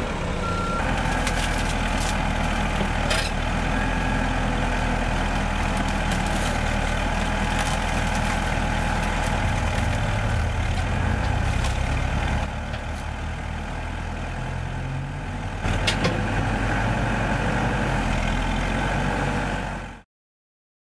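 Heavy diesel engine of construction equipment on a demolition site, running steadily, with a few sharp knocks. It drops quieter for about three seconds partway through, then comes back, and cuts off abruptly just before the end.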